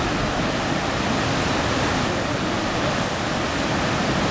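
Large waterfall in full flow: water let out through the dam gates pours as white water down a steep rocky riverbed. The rush is steady and even throughout.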